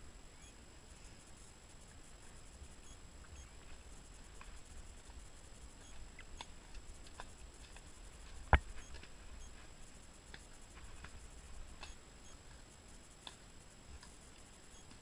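Faint, irregular clicks and ticks over a low rumble, with one sharp, much louder click a little past halfway.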